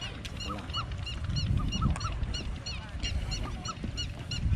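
Birds calling: rapid, evenly repeated high chirps, about three or four a second, mixed with lower calls, over a steady low rumble.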